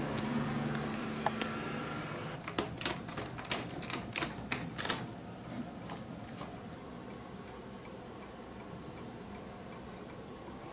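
A calico cat clawing vigorously: a quick run of about a dozen sharp scratching rasps starting about two seconds in and lasting some three seconds. The cat is excited by a stray cat outside.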